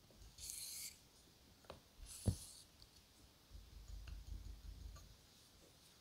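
Straight razor blade stroked across a wet Japanese natural whetstone through Asano Nagura slurry: two faint swishing strokes, with a light click or knock among them.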